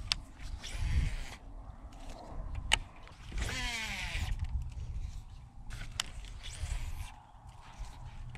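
A cast with a baitcasting reel: about three seconds in, the spool whirs for about a second, its pitch falling as the line pays out. Around it are sharp clicks and knocks from handling the rod and reel, and a low rumble.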